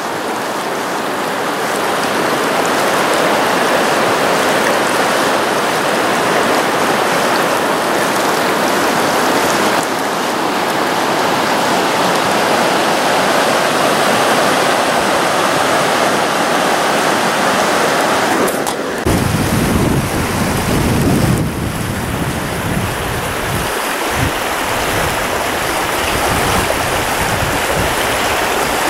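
Creek water rushing over a shallow rocky riffle, a steady hiss. About 19 seconds in the sound changes, the hiss dropping and an uneven low rumble of wind buffeting the microphone coming in.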